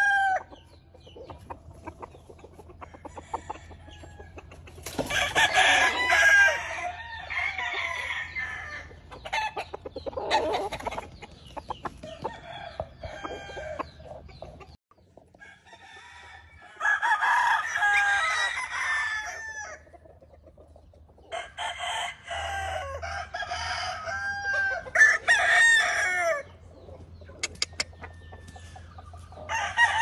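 Gamefowl roosters crowing again and again, each crow a long call of a second or more, with several crows in the back half and clucking in the gaps between them.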